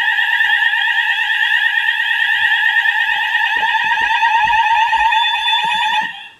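Fire alarm sounders sounding together in a fast warbling tone, with all zones of the alarm system in alarm. They cut off suddenly about six seconds in.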